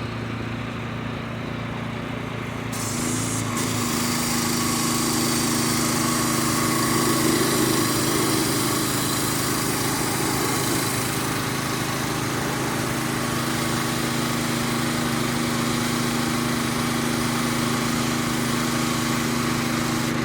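Kohler gas engine of a pressure washer running steadily, with the hiss of the high-pressure spray starting about three seconds in as water hits the truck.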